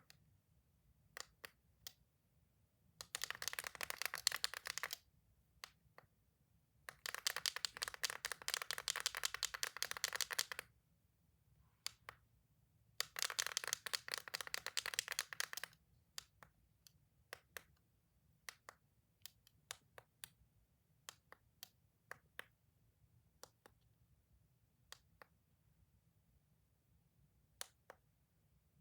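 Toys being clicked: scattered single clicks, with three runs of rapid clicking lasting a few seconds each in the first half.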